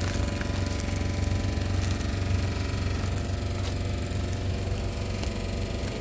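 Steady low mechanical hum with a constant drone, the kind of background machinery hum heard in a supermarket, with a few faint clicks over it.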